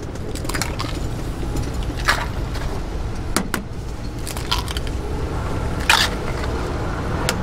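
Raw eggs cracked one by one at a gyeran-ppang (Korean egg bread) griddle mold: several short sharp cracks and taps, the sharpest about six seconds in, over a steady low rumble of street traffic.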